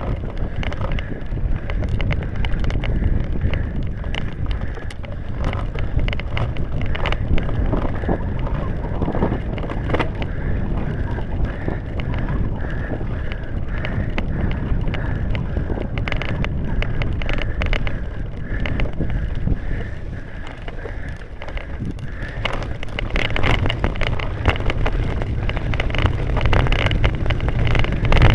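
Wind buffeting the microphone of a camera riding on a cyclo-cross bike, over the noise of tyres on grass and dirt, with frequent rattles and knocks from the bike over bumps. It gets louder near the end.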